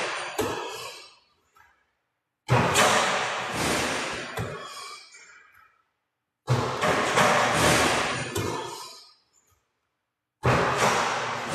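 Basketball dropping through the hoop into a shooting machine's net and return, a sudden thud and rattle that rings out in the metal building and fades over two seconds or so; it happens three times about four seconds apart, with silence between.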